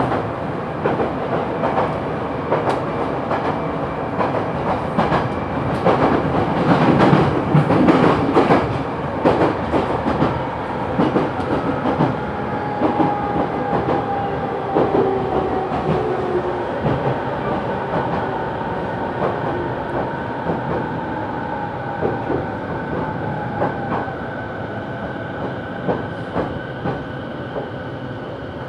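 209-series electric train heard from inside its motor car, wheels rumbling and clacking over rail joints, louder for a few seconds around seven seconds in. From about twelve seconds in, the traction motors' whine slides steadily down in pitch and the running sound eases as the train slows on the approach to a station.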